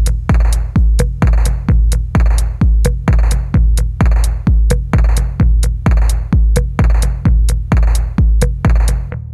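Background music: an electronic track with a heavy kick drum about twice a second and a clap on every other beat.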